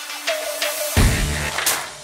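Electronic soundtrack music: quick ticking percussion and a short held tone, then a sudden deep bass hit about a second in that slowly fades.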